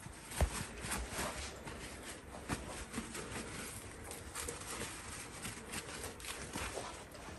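Paper towel patting and rustling against the skin of a raw whole chicken as it is wiped dry. The sound is faint and uneven, with scattered soft pats and a slightly louder thump about half a second in.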